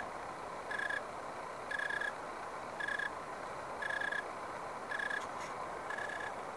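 A tree cricket chirping: even, high-pitched chirps about once a second, each lasting about a third of a second.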